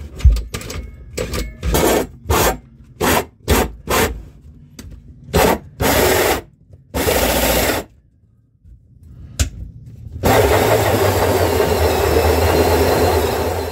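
Power tool cutting a hole through a catamaran's fibreglass hull: about ten short bursts of harsh cutting noise, then a few seconds of continuous cutting with the motor humming underneath, starting about ten seconds in.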